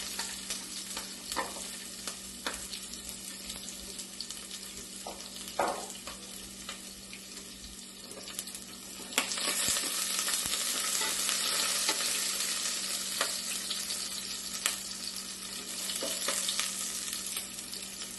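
Ginger, garlic and green chillies sizzling in hot oil with cumin seeds in a pot, with a spoon clicking against the pot now and then as they are stirred. The sizzle gets louder about nine seconds in.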